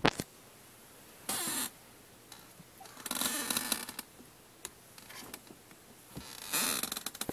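Three short bursts of rustling and scuffing, with a few light clicks at the start: handling noise from a stuffed plush toy, cardboard and the camera on a carpeted floor.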